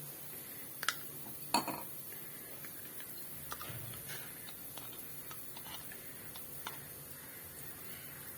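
Metal kitchenware clinking: two sharp clinks about a second in, less than a second apart, then light scattered taps over a faint low hum.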